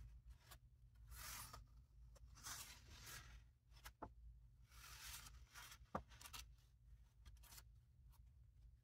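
Pages of a handmade paper journal being turned and smoothed flat by hand: faint soft paper swishes several times, with two light clicks about four and six seconds in.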